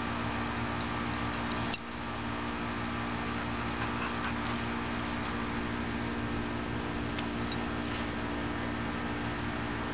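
A steady hum over an even hiss, like a fan or other small machine running, with a brief drop in level about two seconds in.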